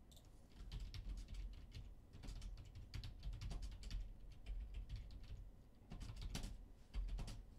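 Typing on a computer keyboard: a run of quick, irregular key clicks.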